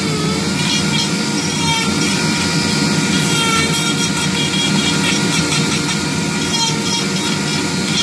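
Dremel rotary tool running at high speed, a small ball burr grinding into wood as it carves, a steady whine that wavers slightly in pitch as the burr bites.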